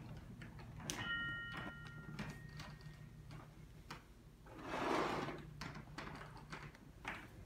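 Sparse, quiet improvised music: scattered light taps and clicks, a short bell-like ring about a second in that dies away over a second or so, and a brief swelling rush of noise a little past the middle, over a low steady hum.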